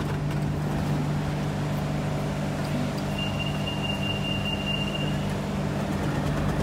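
Siemens EMU A1 metro train standing at a platform with its doors open, giving off a steady low hum. About three seconds in, a thin high tone sounds steadily for about two seconds.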